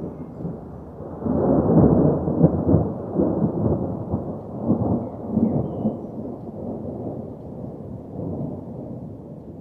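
Rolling thunder: a deep rumble that swells about a second in, peaks over the next couple of seconds with a few heavier cracks, then slowly dies away.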